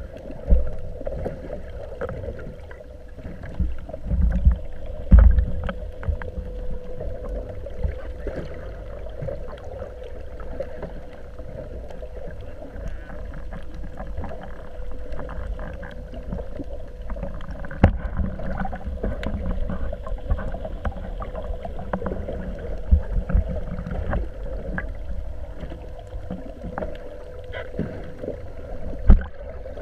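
Water sloshing around a small boat, with low wind buffets on the microphone and a few sharp knocks, about four of them, against the hull. A faint steady hum runs underneath.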